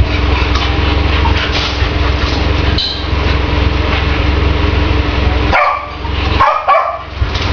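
A steady low hum like an engine running, with a dog barking a few times over it; the hum cuts out briefly twice near the end.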